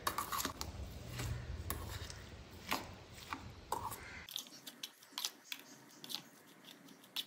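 Metal spoon scraping and clicking against a stainless steel bowl while stirring dry semolina into a wet masala mixture, in faint, irregular strokes.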